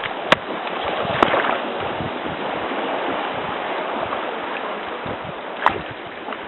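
A steady rush of water and wind around a mokoro dugout canoe, broken by three sharp knocks.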